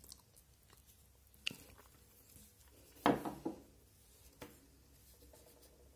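Handling noise of a soldering iron fitted with a cutter blade held by a screw and washer: a light click, then a short clatter of small clicks about three seconds in, and one more click a little later.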